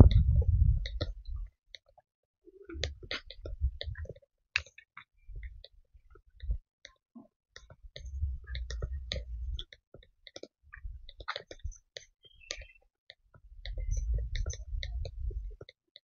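Low rumbling noise on the microphone that swells and fades about six times, each swell lasting a second or two, with scattered light clicks and ticks throughout.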